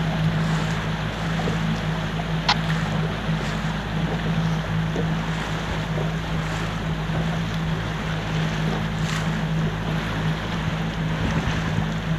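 A boat's engine running steadily as a low, even hum, under wind buffeting the microphone and water rushing past. A single sharp click comes about two and a half seconds in.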